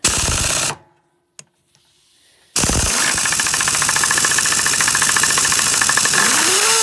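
Half-inch Chicago Pneumatic air impact wrench hammering on a truck air-bag mounting nut: a short burst, then after a pause of about two seconds a longer run of about four seconds of rapid hammering as it loosens the nut.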